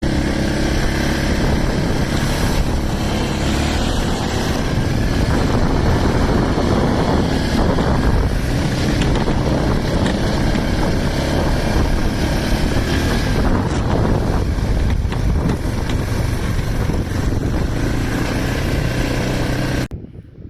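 2000 Yamaha Grizzly 600 ATV's single-cylinder four-stroke engine running steadily under dense rushing noise, cutting off suddenly near the end.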